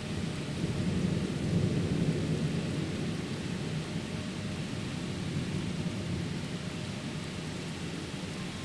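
Rolling thunder: a low rumble that swells about half a second in, is loudest over the next couple of seconds, then slowly dies away, over a steady hiss of rain.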